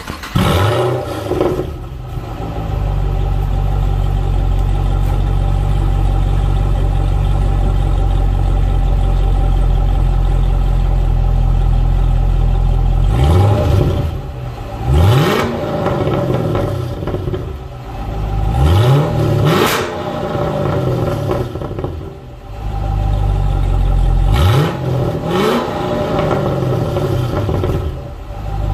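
Chevrolet SS's 6.2-litre LS3 V8 heard through its exhaust, just started: it flares up, then settles into a steady idle. About halfway through, it is revved in six quick throttle blips, mostly in pairs, each rising and falling back to idle.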